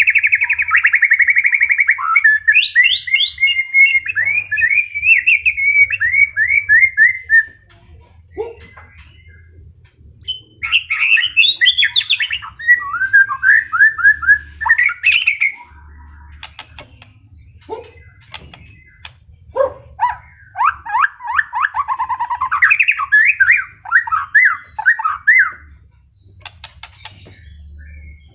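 White-rumped shama singing in three long bursts of fast, varied whistled phrases, with short pauses and a few faint clicks between them.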